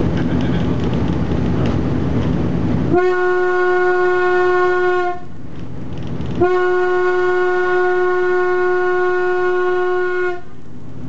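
The railcar rumbles along the track, then about three seconds in its horn sounds two long blasts at one steady pitch, the first about two seconds long and the second about four. The horn is the Talbot railcar T44's own, heard loud from inside its cab.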